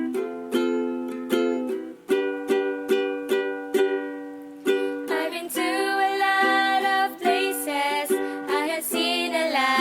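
Song introduction on a plucked-string instrument, chords struck in a slow, even rhythm; about halfway through, a wordless hummed vocal melody joins over the chords.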